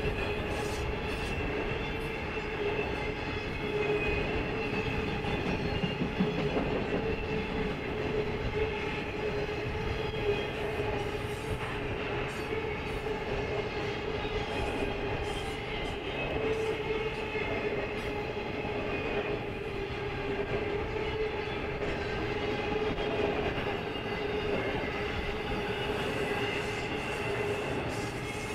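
Freight cars of an intermodal train carrying truck trailers rolling steadily past: steel wheels rumbling on the rails under a continuous, slightly wavering whine, with scattered faint clicks.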